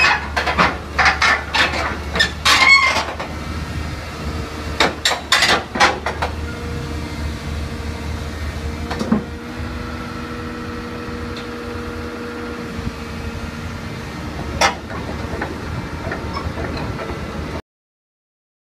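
Caterpillar 320D excavator's diesel engine running as it tracks up steel loading ramps onto a trailer, with sharp metallic clanks and knocks from the tracks in the first six seconds and a steady hum after that. The sound cuts off suddenly shortly before the end.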